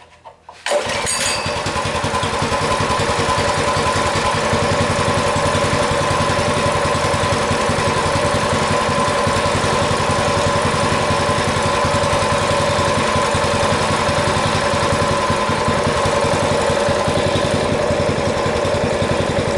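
Massimo MB200 mini bike's 196cc single-cylinder engine catching after a brief crank less than a second in, then idling steadily on choke: a cold first start.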